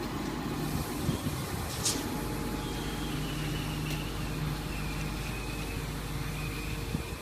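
Hydraulic excavator's diesel engine running steadily while the bucket is slowly lowered, with a faint high whine coming and going and two light clicks.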